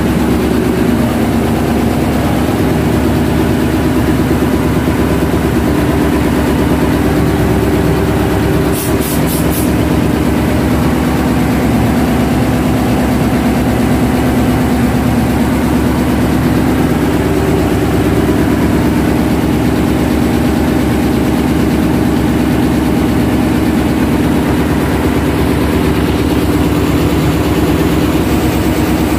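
Ship's diesel engine running steadily in the engine room, a loud constant drone. A brief run of high ticks about nine seconds in.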